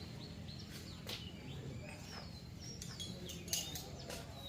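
Small birds chirping, with many short, high chirps and quick pitch sweeps scattered throughout, over a steady low background hum.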